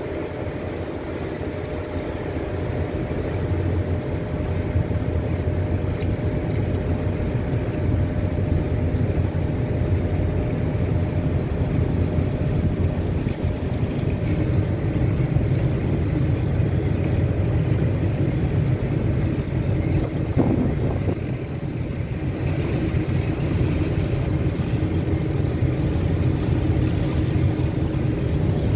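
Steady low engine rumble of a boat under way, with water and wind noise over it.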